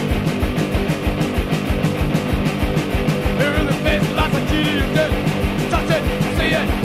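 Loud, fast rock music with a steady driving drum beat.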